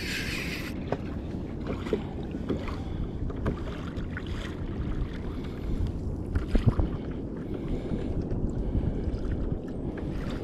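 Water lapping against a sit-on-top fishing kayak's hull, with wind on the microphone and scattered small clicks and knocks. A brief hiss comes right at the start.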